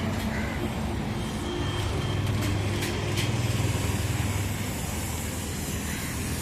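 A vehicle engine running with a low, steady rumble that grows a little louder for a few seconds in the middle.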